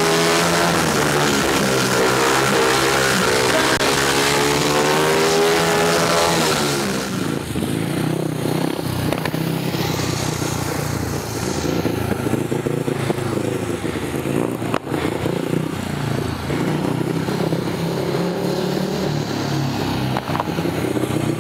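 Speedway bike engine revving hard and loud for the first several seconds, then fainter from about seven seconds in, its pitch rising and falling as the bike laps the track.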